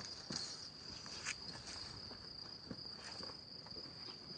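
Faint, steady high-pitched trill of crickets, with a few soft rustles and light thuds mixed in.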